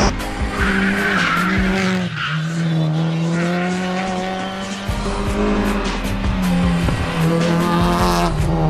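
Competition cars' engines running hard up a hill-climb course, revving up near the end, with tyre squeal, over background music.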